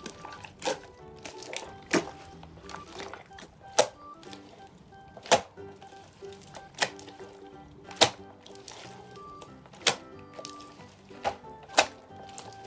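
Glossy slime mixed with wax bits being squeezed and stretched by hand, giving sharp wet pops at irregular intervals of a second or two, over soft background music.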